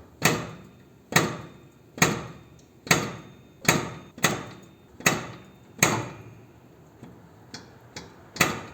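Steel ATV/motorcycle lift clacking as the motorcycle is lowered: a run of sharp metallic clicks, each ringing briefly, about one a second, turning softer and quicker near the end.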